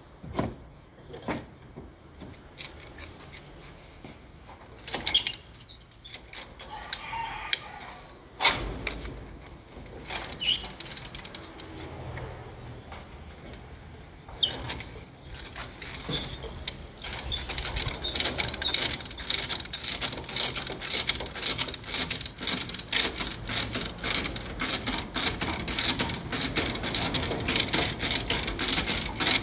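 A hand-operated lever chain hoist (come-along) being ratcheted, its pawl clicking rapidly and steadily as the chain to the car's damaged rear body is pulled taut. For the first half there are only scattered knocks and clicks; the fast ratcheting starts a little past halfway.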